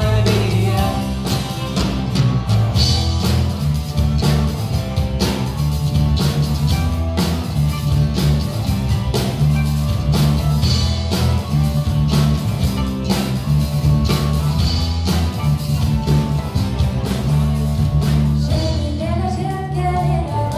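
Live band playing a rock-pop song: strummed acoustic guitar over a steady electric bass line. A young woman sings at the start and again near the end, with an instrumental stretch in between.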